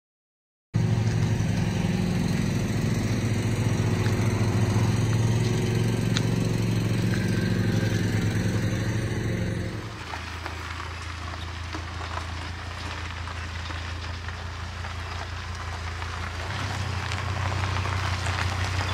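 A vehicle engine runs steadily with a deep hum. About ten seconds in, the sound cuts to a quieter engine, an SUV towing a loaded trailer, which grows louder near the end.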